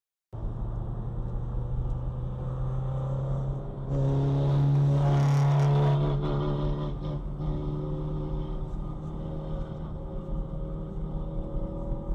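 A car driving on the open road, recorded from inside: a steady engine hum with tyre and road noise. It grows louder for about two seconds, from about four seconds in, as other cars pass close alongside.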